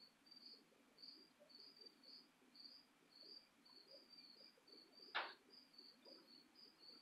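Crickets chirping faintly and steadily, about three chirps a second, with one short click about five seconds in.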